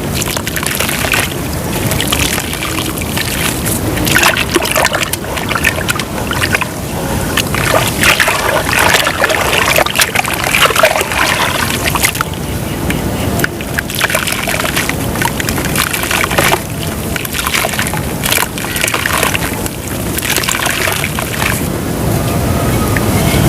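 Clumps of white dirt crumbling and breaking apart in water, with splashing, sloshing and a dense crackle throughout.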